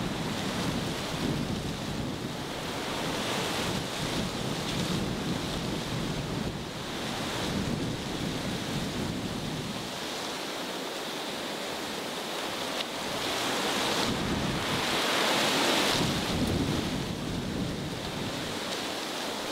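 Wind blowing through the trees and rumbling on the microphone, a steady rushing that swells into a stronger gust about three-quarters of the way through.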